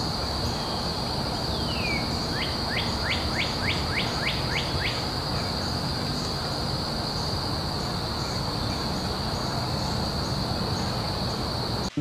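Steady high-pitched insect trill over a low background rumble. A bird calls a rapid series of about nine short falling notes, from about two to five seconds in.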